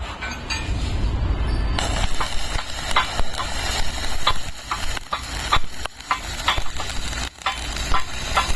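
Electric arc welding: the arc crackles and sizzles steadily with frequent sharp spatter pops, starting about two seconds in after a low hum.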